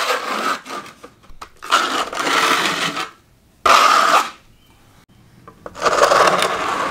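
Notched trowel scraping across the floor as it spreads vinyl-flooring adhesive, in about four strokes with short pauses between them.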